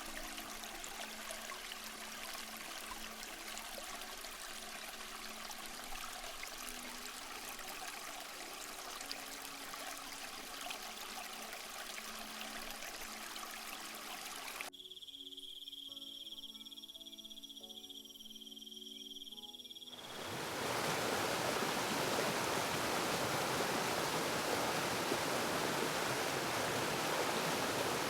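Rushing water of a waterfall and stream, with faint music notes underneath. About fifteen seconds in it cuts to a quieter stretch with a steady high insect-like trill, and about twenty seconds in the rushing water comes back, louder.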